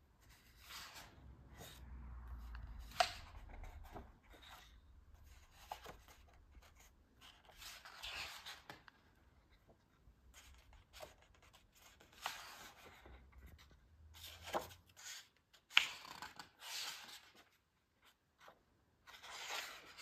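Pages of a large paper lyric booklet being turned by hand, a short rustling swish with each turn, repeated over and over, with a sharper paper snap about 3 seconds in and another near 16 seconds.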